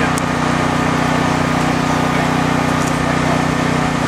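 An engine running steadily, a constant even hum with a steady rushing noise behind it.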